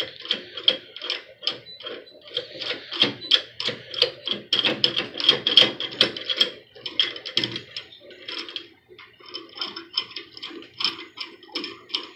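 Hold-down clamp of a Kobalt 12-inch sliding miter saw being screwed down by hand: its threaded rod and knob give a quick run of clicks, about four or five a second, with a short pause about eight seconds in.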